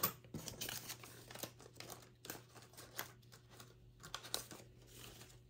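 Faint crinkling and rustling of paper handled by hand, with irregular light taps and clicks.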